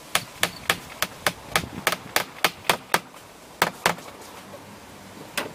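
Claw hammer tapping a small nail into a wooden clapboard: a quick, even run of about a dozen light taps, roughly three a second, then two more after a short pause and a single tap near the end.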